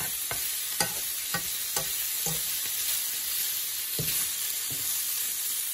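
Meatballs frying in a nonstick frying pan, sizzling steadily in the fat rendered from the meat as they brown. A metal spoon turns them, tapping lightly against the pan several times in the first couple of seconds and twice more near the end.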